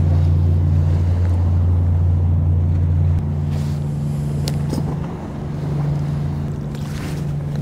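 Deep, steady engine drone of a boat on the water, two low tones held throughout; the lower one fades about three seconds in.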